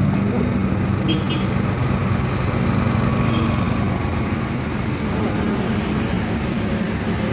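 Honda EP1000 portable generator's small four-stroke engine running steadily at constant speed, a smooth, even hum.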